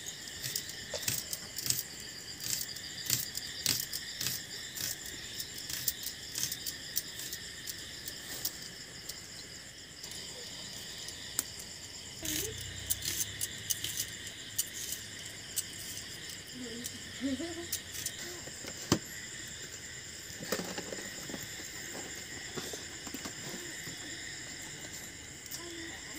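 A steady chorus of night insects, crickets, runs under frequent small sharp clicks and crackles as a small knife peels and slices red onions and papery garlic skins are pulled off.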